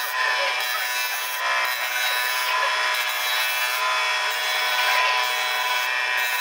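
Woodworking lathe spinning while a turning tool cuts and scrapes the wooden plate blank. The result is a steady, rasping cutting noise over the lathe's whine, easing briefly about once a second.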